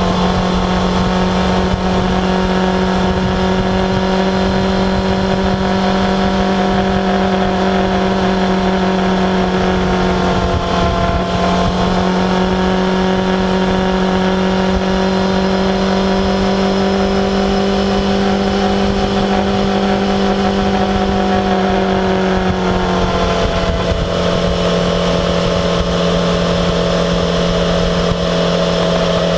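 Yamaha XJ6F's 600 cc inline-four engine running at steady road speed, with wind rush. Its engine note dips and picks up again twice.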